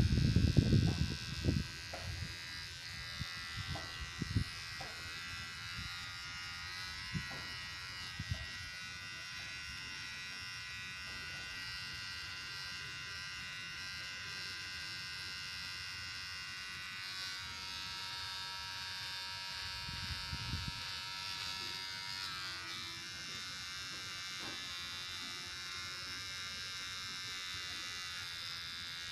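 Xiaomi Mi Beard Trimmer running with a steady high-pitched buzz as it is drawn over the beard under the chin and along the neck. A few low knocks in the first few seconds.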